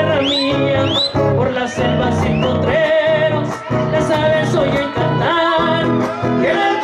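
Huapango huasteco played by a trio: a violin over the strummed rhythm of jarana and huapanguera, the violin sliding up into high notes twice in the first second.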